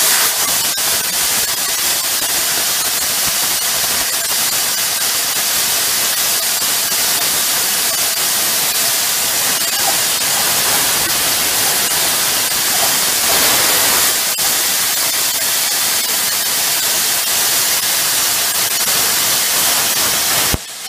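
Hypertherm plasma cutter torch cutting through rusty steel plate with good air pressure and amperage settings: a loud, steady hiss of arc and air that cuts off suddenly near the end as the trigger is released.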